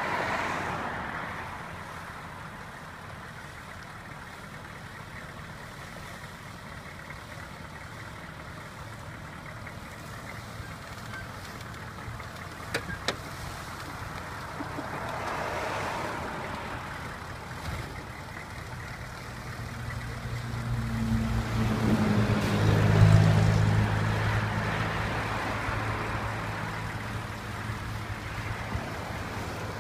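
Chevrolet Suburban GMT400's V8 engine running, faint at first and growing louder past the middle, loudest about two-thirds of the way in before easing off slightly.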